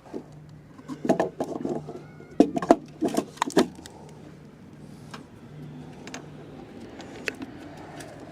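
Clicks and knocks of hands working metal parts while setting up a MIG welder's flux-cored wire feed, packed close together in the first few seconds, then a faint steady low hum with a few scattered ticks.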